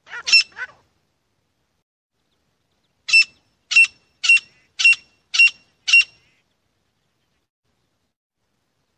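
Grey francolin calling: a quick run of three notes at the start, then after a pause of about two seconds a series of six loud, sharp, ringing notes, evenly spaced about half a second apart.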